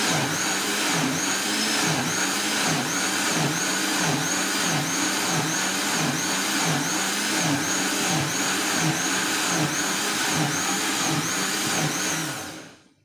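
Electric countertop blender running, blending pineapple, its motor pitch swelling and dipping about three times every two seconds; switched off near the end and winding down.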